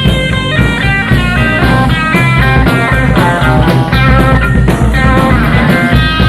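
Live psychedelic rock band playing an instrumental passage, straight off the soundboard: quick runs of single notes, most likely lead electric guitar, over bass and drums.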